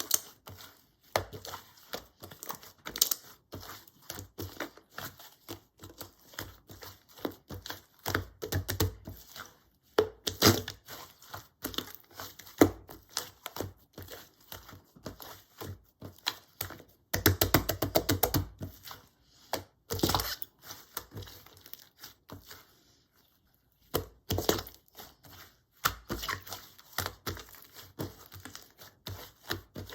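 Hands squishing, stretching and pressing a slightly gritty slime, giving sticky crackles, clicks and small air-bubble pops, with two denser runs of rapid crackling in the second half.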